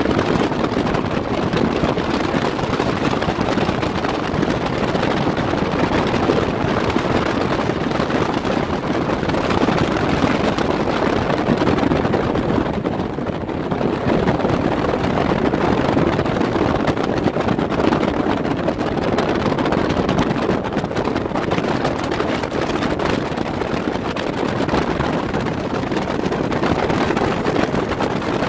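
Bass boat running at speed on open water: a steady rush of wind on the microphone over the outboard motor.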